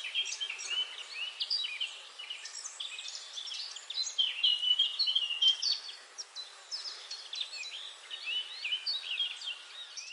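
Several songbirds singing at once: a dense chorus of quick, overlapping chirps, whistles and trills over a faint hiss, busiest about halfway through.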